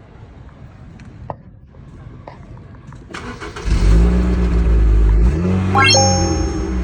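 A car engine starting about three seconds in after a few light clicks, then running steadily. Near the end a brief rising tone sweeps up and settles into a steady note.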